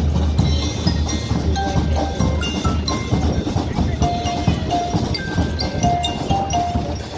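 Percussion band on a parade float playing music of short struck notes on marimba and xylophone-type mallet instruments. Under it, the low steady drone of the compact tractor's diesel engine towing the float fades away about halfway through.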